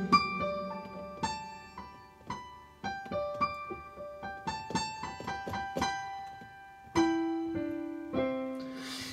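Piano playing an instrumental passage of single struck notes and short runs that ring and fade, with a louder, lower chord about seven seconds in.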